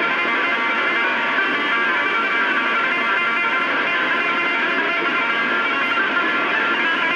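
Music with a strummed guitar coming through a CB radio receiver, thin and cut off above the radio's narrow audio band. It plays over a steady bed of overlapping tones.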